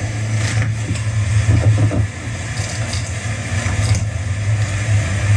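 Jet ski engine running steadily at speed, a constant low drone, mixed with rushing wind and water noise over the microphone.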